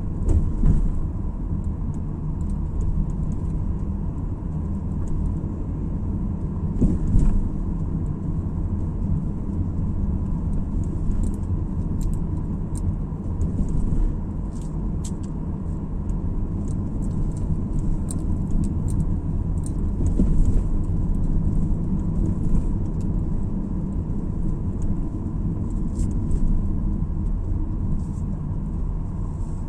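Car driving along a road, heard from inside the cabin: a steady low rumble of engine and tyre noise, with small ticks and rattles and a couple of slightly louder jolts about seven and twenty seconds in.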